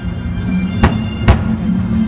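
Fireworks display: two sharp firework bangs about half a second apart, over music with long held low notes.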